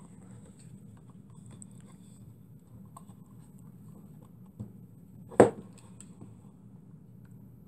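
Faint handling clicks as a small engine on its wooden base is turned over and handled, with one sharp wooden knock about five and a half seconds in, and a smaller one just before it, as the base is set down on the workbench.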